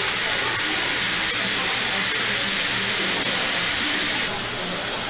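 Pork-wrapped vegetable rolls sizzling on a hot steel flat-top griddle: a steady hiss that drops a little about four seconds in.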